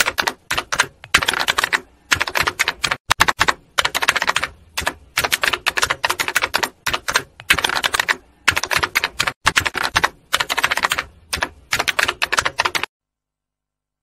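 Typing sound: rapid key clicks in bursts of about half a second with short gaps between them. It stops abruptly about a second before the end.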